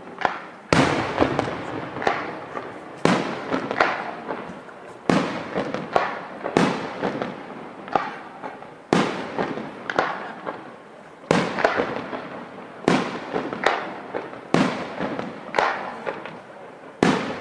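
Aerial firework shells bursting one after another, a sharp bang about every second, each followed by a fading rumble and echo.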